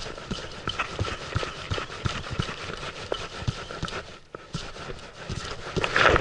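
Spinning reel cranked in quick jerk-and-wind strokes while jigging, giving a run of irregular clicks and knocks over a faint steady whir. A louder rush of noise starts just before the end.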